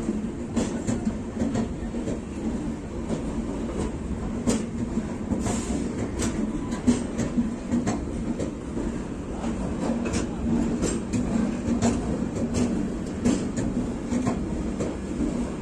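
Coaches of an Indian Railways express train rolling past on the track: a steady low rumble with many sharp wheel clacks over rail joints scattered throughout.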